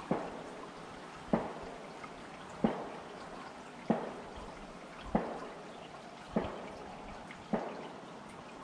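Water dripping at an even pace, one drop about every one and a quarter seconds, seven in all.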